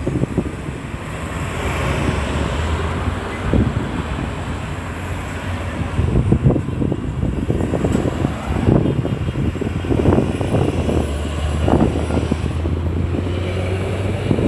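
Road traffic, cars passing steadily, with low gusts of wind buffeting the microphone.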